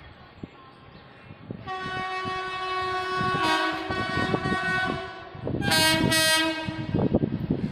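Horn of an approaching Indian Railways electric locomotive: one long blast of about three and a half seconds, then a shorter blast of about a second. Near the end the wheels start clattering over the rail joints as the train comes closer.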